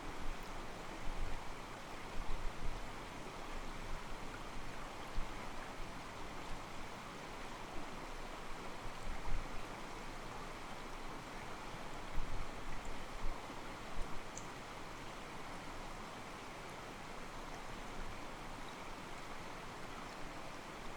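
Mountain stream water flowing and sloshing against rocks: a steady rushing with a few brief louder surges.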